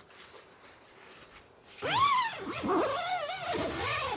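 Tent door zipper pulled in quick sweeps around the curved door, a buzzing rasp that keeps rising and falling in pitch as the pull speeds up and slows. It starts suddenly about two seconds in.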